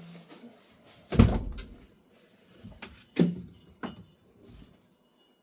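Two heavy thumps about two seconds apart, then two lighter knocks.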